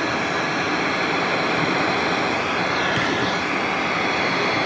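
Wagner Furno 300 heat gun running, a steady rush of blown air with a faint high whine over it.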